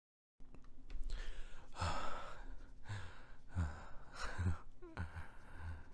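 Dead silence for a moment, then a man breathing close to the microphone: a run of audible breaths and sighs, about one every half second to second, some with a little voice in them.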